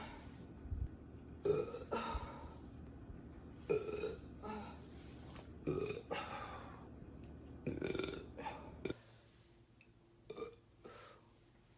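A young woman burping over and over, a burp about every second or two, with a few quieter ones near the end.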